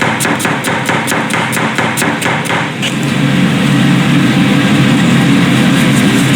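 Rapid, even knocking, about five strokes a second, that stops about three seconds in, over a steady low drone.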